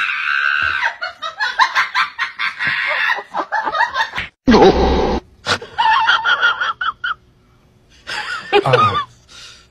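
People laughing in short, choppy bursts, with a loud sudden burst about halfway through and a brief lull near the end.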